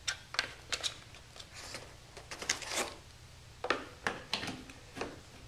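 Handling noise as a PoE power injector and its cables are lifted and moved about in a cardboard box with foam packing: a dozen or so scattered light clicks, taps and rustles, unevenly spaced.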